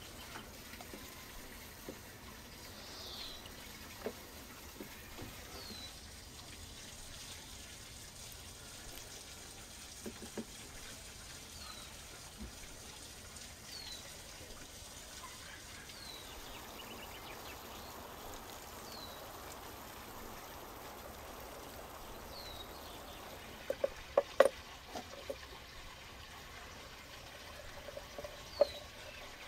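Thin stream of hot water trickling from a brass samovar's tap into a glass teapot, with a few sharp clicks about three-quarters of the way through. Throughout, a bird repeats a short high call that falls in pitch, about every two seconds.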